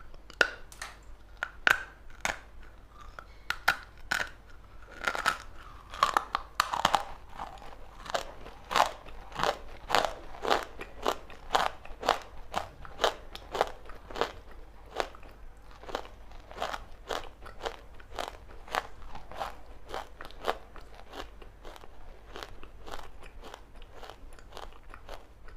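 A person biting and chewing crunchy chalk, a steady run of sharp, dry crunches, about two a second.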